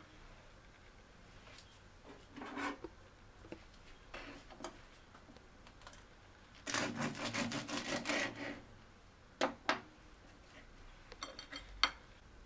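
A knife sawing through a crisp toasted sourdough cheese sandwich on a wooden chopping board: a quick run of crunching, rasping strokes lasting under two seconds, midway. Light knocks of toast and knife on the board and a ceramic plate come before and after.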